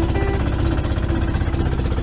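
Small fishing boat's engine running steadily with a fast, even knock, mixed with background music carrying a melody.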